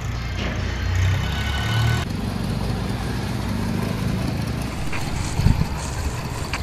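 A motor running steadily with a low rumble, with a short thump about five and a half seconds in.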